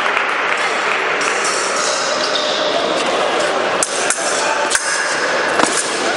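Épée blades clinking and striking against each other in a few sharp metallic contacts in the second half, over a steady babble of voices in a large hall.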